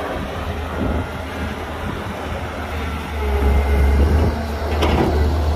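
Diesel engines of heavy earthmoving machinery running with a low rumble that grows louder about three seconds in. A short clank comes near the end.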